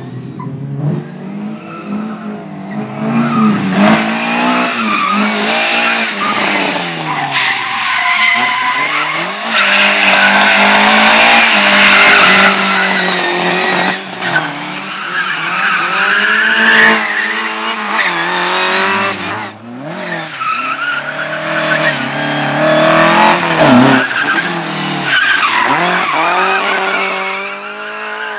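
Competition car driven hard through a slalom course: its engine revs rise and fall over and over with gear changes and lifts, while the tyres squeal and skid through the turns, loudest about ten to thirteen seconds in.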